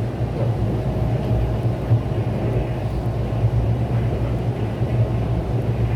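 Mugunghwa passenger train running, heard from inside the carriage: a steady low rumble and hum of the wheels and running gear.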